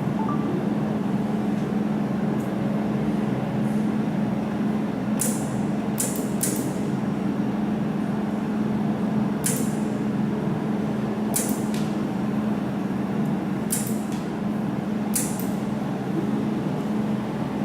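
Jewelry laser welding machine: a steady low machine hum, with about eight sharp, brief snaps of single laser pulses hitting the metal, irregularly spaced from about five seconds in.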